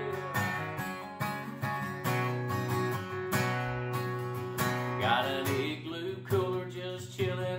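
Takamine acoustic guitar strummed in a steady country rhythm, about two to three strums a second, with no singing over it.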